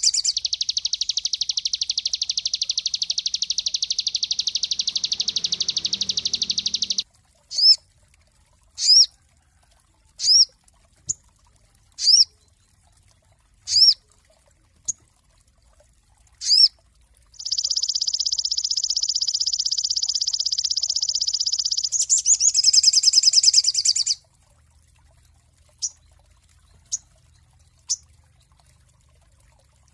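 Small songbird, the 'sogon' kept by Indonesian songbird hobbyists, singing high-pitched: a long, very rapid trill, then a string of single short rising chirps about one a second, another long rapid trill, and a few short ticks near the end.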